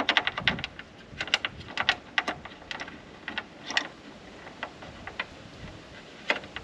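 Small metal hardware clicking and rattling as the tailgate table's mounting bolts are fitted into the tailgate holes and turned: a quick run of clicks at first, then scattered single clicks.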